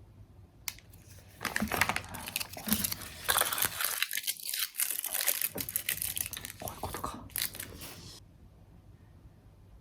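Crinkling and tearing of something being handled, in irregular bursts that stop about eight seconds in.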